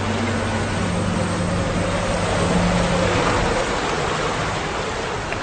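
Hurricane wind and heavy rain, a steady dense rush of noise with a faint low howl under it.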